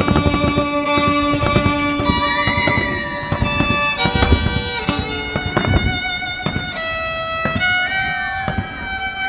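Background music with a string lead playing long held notes that change pitch every second or so.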